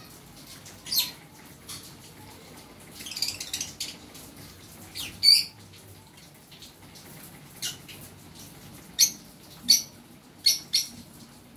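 Fischer's lovebirds giving short, shrill chirps at irregular intervals, with a brief burst of chattering about three seconds in.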